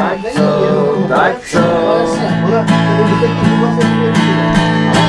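Background music: a Czech song carried by acoustic guitar, dipping briefly about a second and a half in, then settling into a steady strummed beat.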